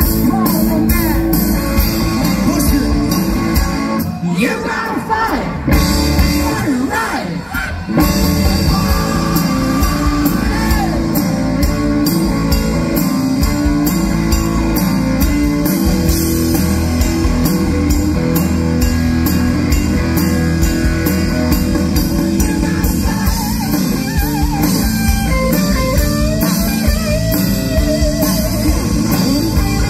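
Live rock band playing: singing over electric guitar, bass and drum kit. The bass and drums thin out for a few seconds from about four seconds in, then come back in full.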